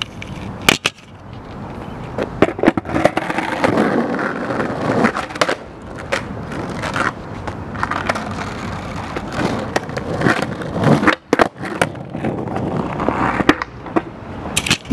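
Skateboard rolling over coarse chip-seal asphalt, its wheels grinding steadily. Several sharp clacks of the board sound as the skater pops and lands backside shove-its.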